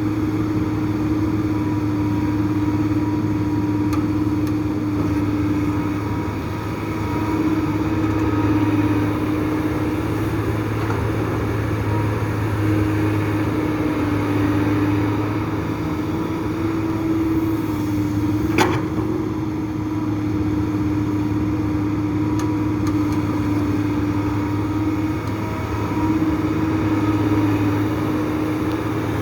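Heavy diesel excavator engine running steadily under load as it digs and loads soil, its pitch and level swelling and easing a little, with one sharp knock about two thirds of the way through.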